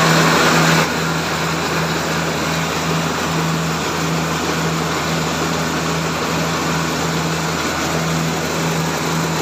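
Small rice mill running steadily: a machine hum that dips briefly about every half second, under a constant rushing rattle of paddy rice grains pouring through the mill and over its perforated screen.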